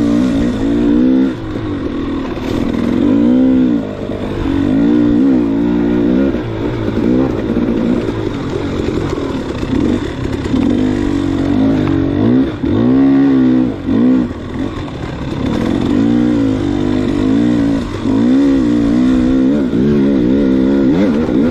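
Dirt bike engine revving up and down over and over, its pitch rising and falling with the throttle, with short dips where the throttle is closed.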